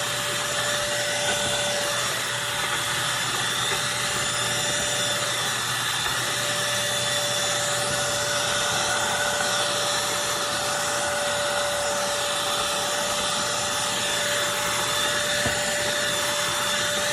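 Eureka NES212C lightweight corded stick vacuum running steadily: a constant whine over the rush of suction air.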